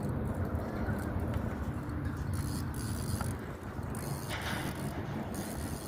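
Fishing reel's drag clicking as a hooked catfish pulls line off the spool, over a steady low background rumble.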